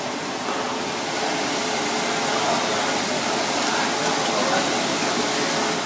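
Steady rushing background noise of a working kitchen with a faint steady hum, growing a little louder about a second in.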